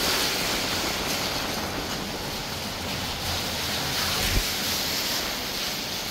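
Heavy rain falling in a steady hiss, with a brief low thump about four seconds in.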